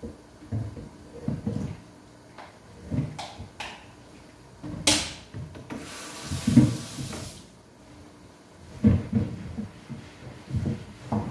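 Kitchenware being handled at a sink: irregular low knocks and scrapes, a sharp high clatter about five seconds in, then a brief rush of running tap water lasting about a second and a half.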